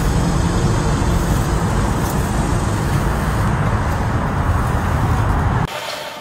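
Loud, steady rumbling noise, heaviest in the bass, that cuts off about five and a half seconds in.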